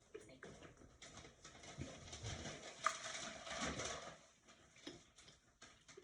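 Close-up eating noises: irregular crunching and small clicks of food being chewed, with one sharp click about three seconds in.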